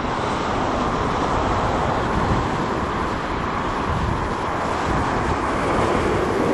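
Steady rush of wind on the microphone and churning wake water from a boat moving at speed.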